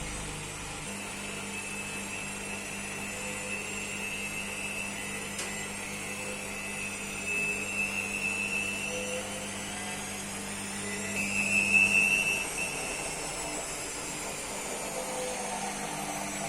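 IFB washing machine on its spin cycle: the motor and drum run with a steady whine that climbs in pitch and grows louder about twelve seconds in, then eases back.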